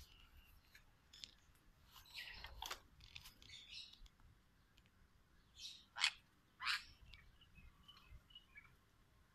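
Bird chirping: short, high, sharp chirps at irregular intervals, with a cluster about two to four seconds in and the loudest pair around six to seven seconds in.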